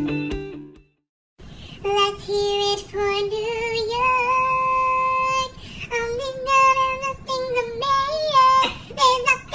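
Guitar music ends about a second in; after a short silence a woman sings solo without accompaniment, holding long notes and sliding between pitches.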